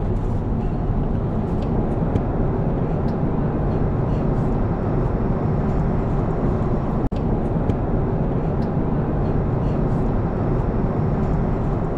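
Steady roar of airliner cabin noise in flight: engine and airflow noise heard inside an Airbus A350's cabin, with a brief dropout about seven seconds in.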